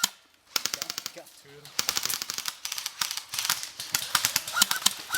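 Airsoft electric guns firing on full auto in rapid rattling bursts of clicks, with a brief lull about half a second in and steady bursts after.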